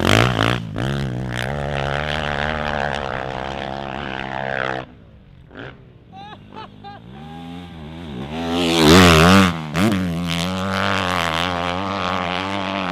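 Motocross bike engine revving hard on a jump track, its pitch rising and falling with the throttle. It drops away about five seconds in, gives a few short blips, then revs up again to its loudest a few seconds later with wavering revs.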